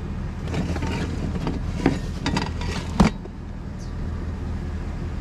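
Hands rummaging through a trunk of junk: short clinks and rattles of loose metal buckle pieces and a brass tray, ending with a sharp knock about three seconds in, over a steady low hum.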